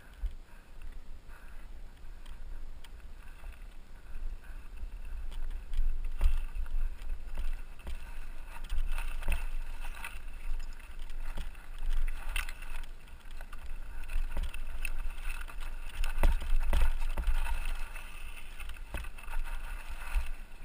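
Wind rumbling on the camera microphone, with irregular crunching, clicking and rattling as a mountain bike moves over loose rocks and gravel. The knocks come thicker from about a quarter of the way in.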